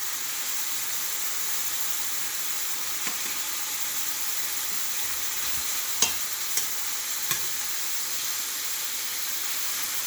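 Chicken and shrimp sizzling in oil in a pan on high heat, a steady frying hiss. A few short clicks of a stirring utensil against the pan come through, the loudest about six seconds in.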